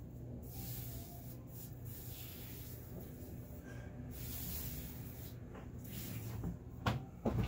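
Hands rubbing and pressing a strip of wall mesh into fresh glue on the wall, a soft scratchy rustle that comes and goes, over a low steady hum. Two sharp knocks near the end.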